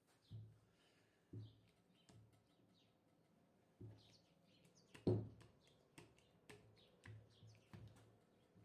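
Faint bird chirps in the background, with a handful of soft knocks and clicks, the loudest about five seconds in.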